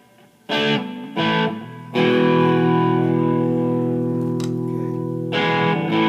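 Fender Stratocaster electric guitar strumming chords through a Fender Bandmaster tube amp. Two short chords, then one chord left to ring for about three seconds, then another chord struck near the end.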